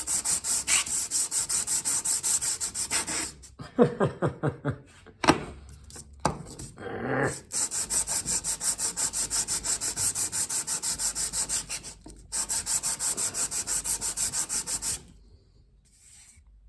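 A carburetor mounting plate being lapped by hand on sandpaper, rubbed back and forth in fast, even strokes, about five a second, with a couple of short pauses. The strokes stop near the end. The rubbing is the gasket face being sanded flat so it will seal against vacuum leaks.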